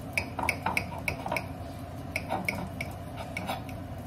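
A knife cutting through a venison cheeseburger, its strokes clinking and scraping against the dish. The clinks come quickly, about four a second, in two runs with a short pause between them.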